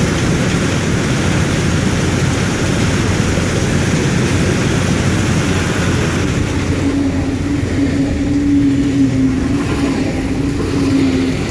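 A train passing on the neighbouring track through a track-renewal worksite, giving a steady, loud rumble. Its higher rushing noise eases off about halfway through, and a steady hum joins about seven seconds in.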